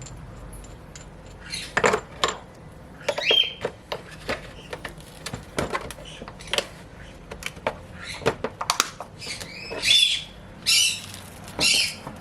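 Irregular clicks, knocks and clatter from the bearing kit's aluminium driver pieces and bolt being handled, with a few short scraping sounds near the end.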